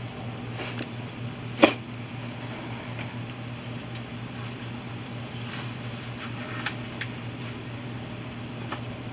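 A steady low hum, with one sharp click about a second and a half in and a few faint ticks near the end.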